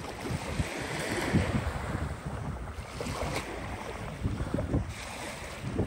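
Wind buffeting the microphone in irregular gusts over small waves lapping on a sandy beach.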